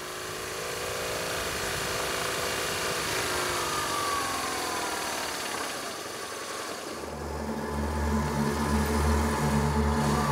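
Motorcycle engine running as the bike approaches, its pitch falling as it slows, then idling close by with a steady low note from about seven seconds in.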